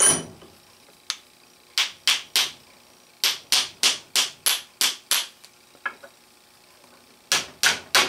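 Copper hammer tapping on the steel pin of a push-button indicator base to drive out a rust-seized, oil-soaked part. Sharp metal taps come in short groups, the quickest run at about three taps a second.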